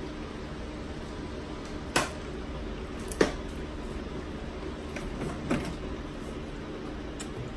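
Steady low background hum with a few isolated clicks and knocks from tableware being handled while eating sushi: a sharp knock about two seconds in, another a second later, then fainter clicks.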